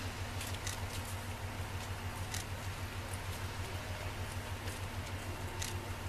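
Diesel railcar idling at the platform, a steady low throb with an even pulse, with a few faint sharp clicks over it.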